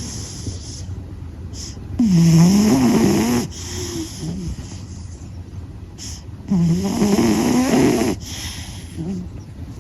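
Domestic cat snoring in its sleep: two loud snores about four and a half seconds apart, each lasting about a second and a half with a wavering pitch, and softer breaths between them.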